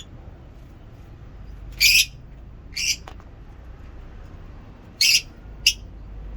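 Lovebirds giving short, harsh, high-pitched calls, four in all: two about two to three seconds in and two about five seconds in.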